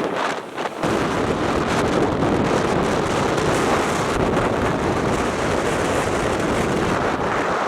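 Strong storm wind buffeting the microphone, a steady loud rush of noise that dips briefly about half a second in.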